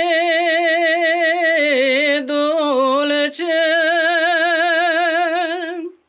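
Unaccompanied singing of a slow Romanian Orthodox devotional song (pricesnă): a single voice holds long notes with a wide, even vibrato. The line breaks briefly about two seconds in and again just after three seconds, then stops suddenly near the end.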